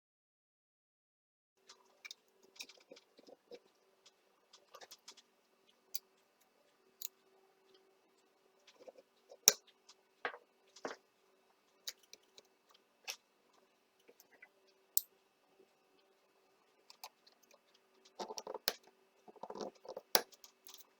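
Scattered clicks, taps and scraping of small parts and hand tools being handled during the disassembly of a cordless grass shear's cutting blades, with one sharp click about nine seconds in and a flurry of scraping near the end. A faint steady hum runs underneath.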